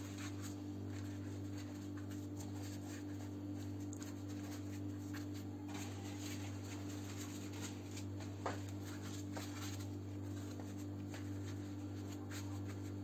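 Faint rustling and crinkling of a thin sheet of ready-made yufka pastry as it is laid over a börek filling and smoothed out by hand, over a steady low hum. There is one light tap about eight and a half seconds in.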